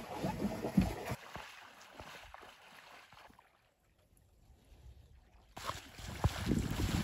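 A person wading through shallow marsh water, sloshing and splashing with each step, getting louder near the end. Before that, a few knocks and rustles in the first second, then a quiet stretch.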